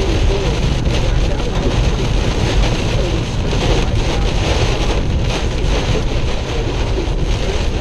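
Steady loud rush of heavy rain on a moving car, with tyre noise from the wet road and the engine running underneath.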